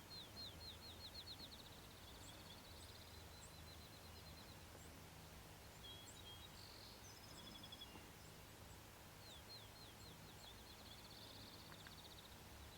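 Faint birdsong outdoors. One bird sings a song of quick, falling notes that runs into a trill, once at the start and again about nine seconds in. Other birds give scattered high chirps in between.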